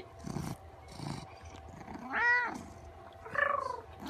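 A white cat meowing: one short arched meow about two seconds in, then a short stuttering call that falls in pitch near the end, with soft low breathy sounds before them.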